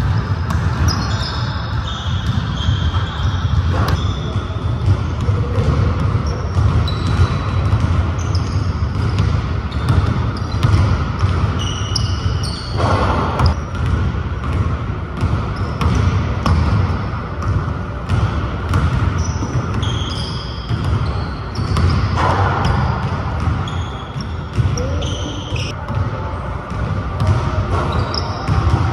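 Basketballs bouncing on a hardwood gym floor in quick irregular thuds, with short high squeaks of sneakers on the court scattered throughout, echoing in a large gym.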